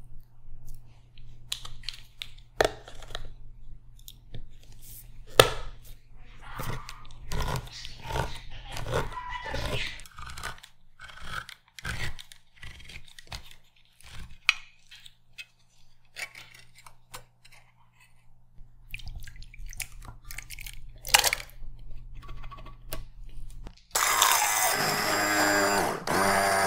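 Vegetable preparation: irregular knocks, crunches and tearing sounds over a faint steady low hum. Background music comes in near the end.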